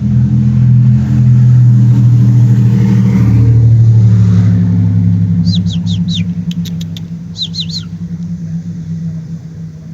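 A motor engine runs loud and low, shifts in pitch a few seconds in, then fades away steadily through the second half. Over it come several short, falling bird chirps in two quick groups, with a few sharp ticks between them.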